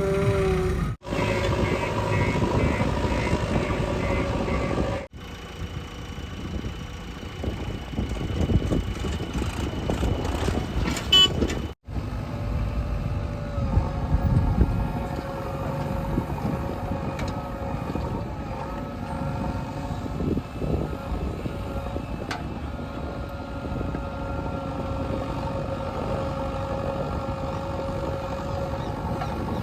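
Heavy diesel machinery working: the engines of a JCB 3DX backhoe loader and a Tata tipper truck running under load. The sound comes in short clips joined by abrupt cuts, three in the first twelve seconds.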